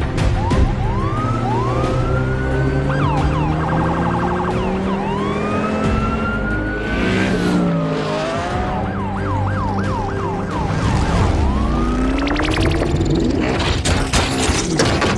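Police-style sirens wailing and yelping, with fast repeated up-and-down sweeps, over the steady drone of car engines in a film chase sound mix, with music underneath. Near the end, dense metallic crashing and clatter.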